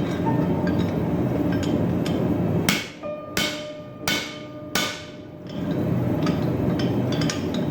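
Hammer striking the top die of a blacksmith's spring fullering tool on hot steel: four sharp metal-on-metal blows about two-thirds of a second apart in the middle, each with a short ring. A steady low rushing noise fills the stretches before and after the blows.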